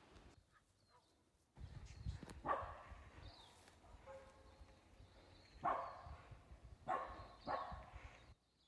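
An animal's short calls, four of them, the first about two and a half seconds in and three close together near the end, over a low rumble.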